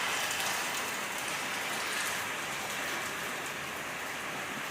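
Heavy rain pouring steadily in a downpour.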